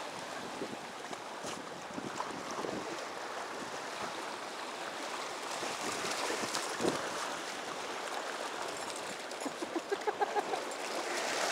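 Small waves of shallow beach surf washing in, with a dog splashing through the water. Near the end, a run of short pitched sounds comes over the water noise.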